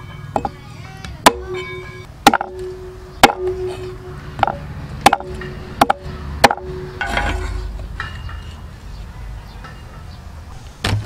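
A cleaver chopping through stuffed oxtail rolls onto a wooden chopping board: about eight sharp chops, roughly one a second, then a pause and one more chop near the end.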